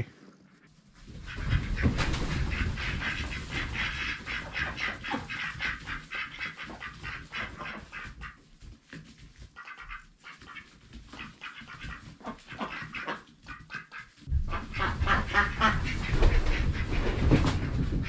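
A flock of ducks quacking in a rapid, busy chatter. It dies down about halfway through and rises again near the end along with low rumbling.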